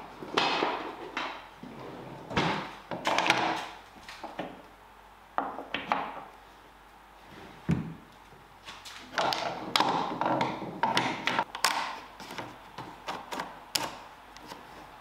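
Pieces of wood knocking and clattering against each other and a work surface as they are handled and set down, in irregular thunks and taps.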